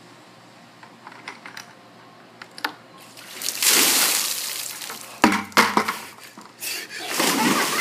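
A bucket of ice water poured over a person's head, splashing down onto the pool deck for about a second and a half. This is followed by a few sharp knocks, and then a second big splash near the end as a body goes into a swimming pool.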